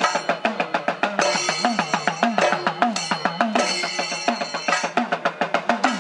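Idakka thayambaka ensemble: idakka hourglass drums struck fast with sticks, their pitch bending up and down, over a chenda beat. Ilathalam cymbals ring in short bursts about once a second, then drop away near the end.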